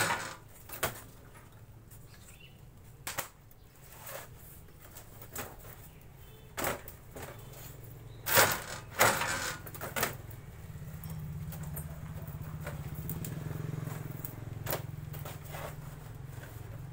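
Dry wood veneer sheets rustling, crackling and snapping as they are handled and cut on a hand-operated lever-arm veneer cutter, with sharp knocks a few seconds apart, the loudest about eight to nine seconds in. From about eleven seconds a steady low motor hum runs underneath.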